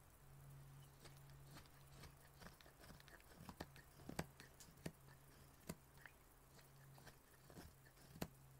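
Straight carving knife paring cuts from a cherry-wood spoon, making faint crisp slicing clicks, with a few sharper cuts in the second half.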